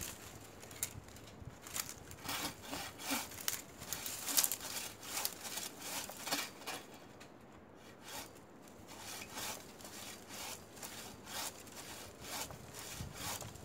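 Hand bow saw cutting through the thick woody stem of a bush in quick back-and-forth strokes, about two to three a second, with a brief pause about seven seconds in.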